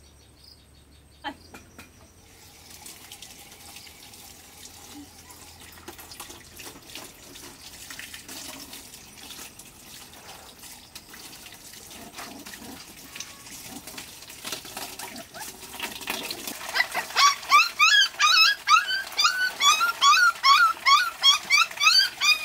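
Tap water running into a metal basin while puppies are washed in it, with small splashes. From about two-thirds of the way in, puppies yelp and whine over and over, two or three high cries a second, louder than the water.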